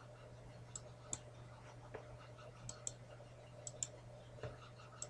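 Computer mouse clicks, mostly in quick press-and-release pairs: three pairs and a single click near the end, over a faint steady hum.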